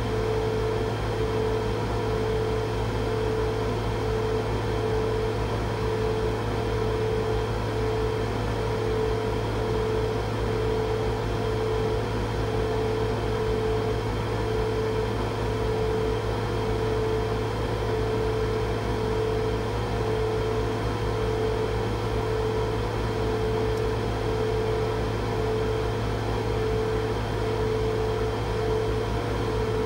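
Laser cutter running while it cuts a snowflake outline into a wooden board: a steady machine hum with a constant droning tone and a low rumble that do not change.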